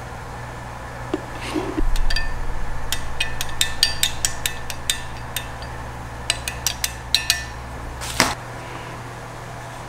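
A run of light, sharp clicks and taps as a black finned heatsink and metal digital calipers are handled against each other, thickest in the middle, with one louder knock near the end. A steady low hum runs underneath.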